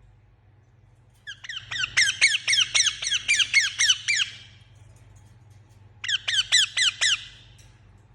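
Indian ringneck parakeet giving fast runs of high squawks that fall in pitch, about six a second. A long run starts about a second in, and a shorter one comes near the end.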